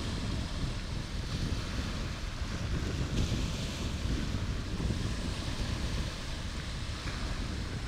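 Wind buffeting the microphone in uneven gusts, over a steady wash of water.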